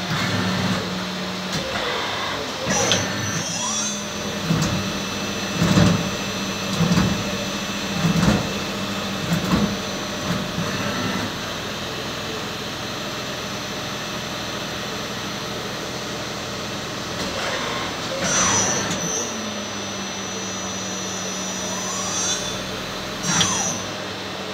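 Tsugami M50SYE-III CNC lathe running: a steady low hum, with a high whine that rises and falls twice. About six sharp knocks come roughly a second apart in the first half.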